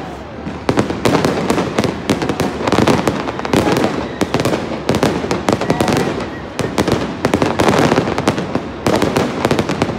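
Fireworks display going off in rapid succession: a dense, continuous string of bangs and crackles from aerial shells.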